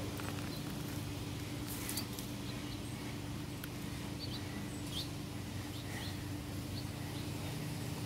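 A steady low mechanical hum with short bird chirps scattered over it, and a few light scrapes and rustles from gloved hands digging through loose soil.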